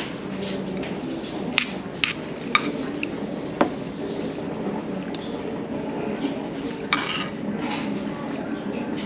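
A metal spoon clinking against a ceramic bowl while scooping shaved ice, with about four sharp clinks in the first four seconds and a few softer ones later, over a low steady background murmur.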